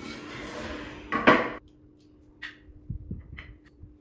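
Wooden easel base frame being turned over and set down on a hardwood floor: a scraping shuffle, then a loud wooden clatter about a second in, followed by a few light taps and knocks as it is handled.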